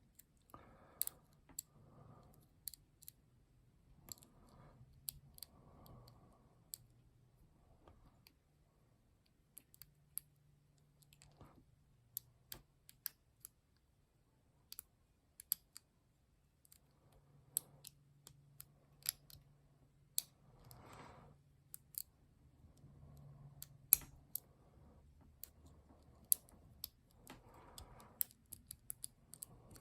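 Lock being picked: small, irregular metallic clicks and scrapes of a pick and tension wrench working in the keyway, with a faint steady low hum underneath.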